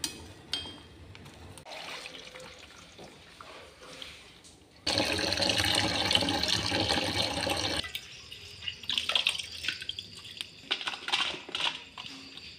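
A couple of sharp clicks, then a tap running hard onto boiled papaya flowers in a perforated steel colander for about three seconds, rinsing them. After it stops, wet rustling and scattered taps as the flowers are handled.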